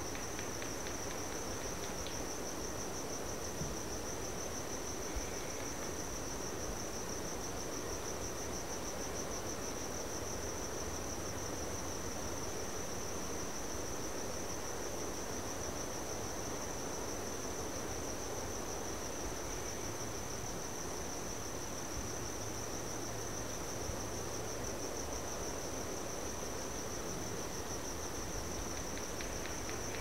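Crickets chirping in one steady, unbroken high-pitched trill over a soft, even background hiss.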